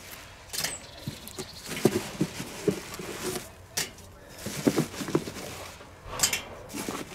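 Charcoal briquettes clattering irregularly into a metal chimney starter as they are tipped from a plastic bag, with a few sharper knocks and the bag crinkling.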